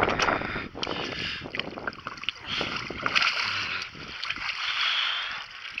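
Water splashing and sloshing as a hooked channel catfish thrashes at the surface and is scooped into a landing net. The splashing comes in uneven surges, with a few light knocks.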